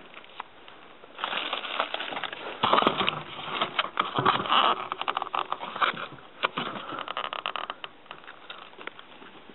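Irregular rustling and crackling, thick with small clicks. It starts about a second in, is loudest in the middle, and eases off near the end.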